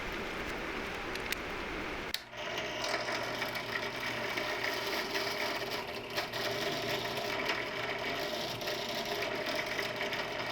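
Benchtop drill press running with its bit cutting a hole: a steady motor whir with a rough, grinding texture. It comes in after a brief drop about two seconds in, with a steady hiss before that.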